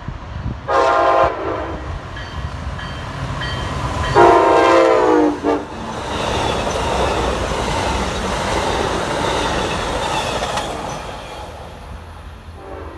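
Amtrak Pacific Surfliner passenger train sounding its horn as it passes: a short blast, then a longer, louder one whose pitch drops at the end. The bilevel cars then rush past on the rails, fading away, and the horn sounds again, fainter, near the end.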